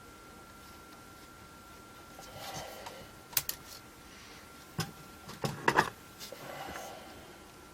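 Small tools and parts being handled on a workbench: a few sharp clicks and taps in the middle, with light rustling before and after, over a faint steady high whine.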